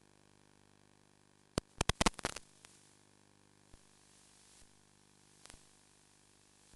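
Faint steady hiss and hum of recording static, broken by a quick cluster of sharp crackling clicks about two seconds in, a few single clicks after, and a short crackle near the end.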